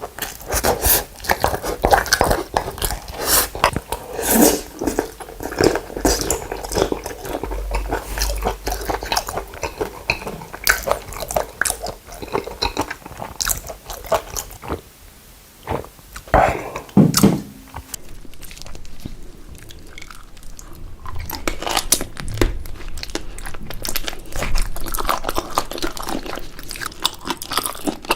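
Close-up eating sounds of soy-marinated raw shrimp being bitten into and chewed, with wet crunching and many small clicks; it goes briefly quieter about halfway through, then continues more softly.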